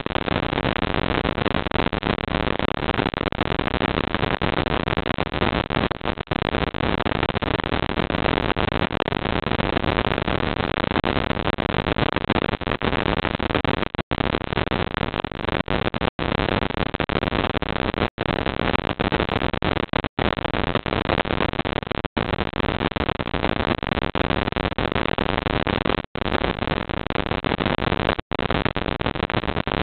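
Steady loud hiss from a security camera's audio track, with no distinct sound in it. In the second half it cuts out for an instant about every two seconds.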